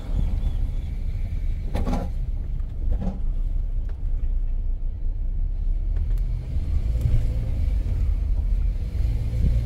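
Car driving on a road, heard from inside the cabin: a steady low rumble of engine and road noise.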